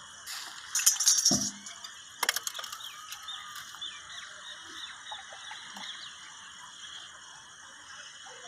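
A few light knocks and clinks as plastic pipe fittings and a valve are handled and pushed together, with one sharp click a little over two seconds in. After that only faint chirping over a steady low background.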